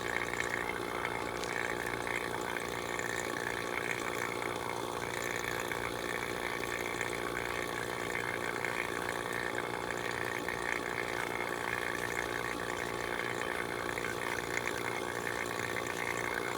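Refrigerant vacuum pump running steadily, a continuous even drone, pulling moisture out of the new heat pump's refrigerant lines.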